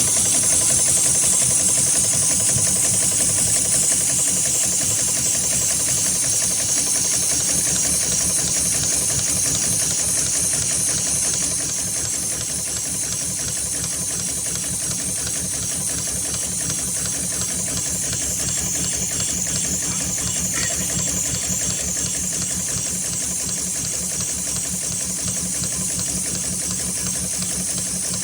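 HighTex 71008R heavy-duty automatic rope sewing machine running continuously, stitching with a fast, even mechanical rhythm and a steady high hiss over it.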